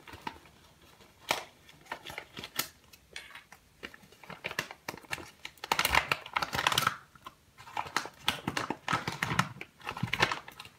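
A kraft-paper packaging bag being handled and opened, crinkling and rustling in irregular bursts with small handling clicks. The loudest stretch comes just past the middle, with another near the end.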